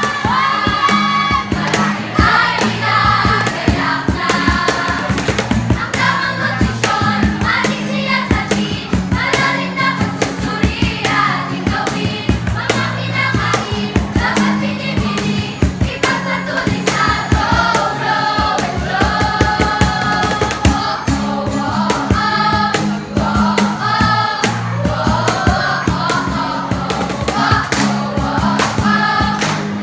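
A group singing a jingle together over accompanying music with a steady beat.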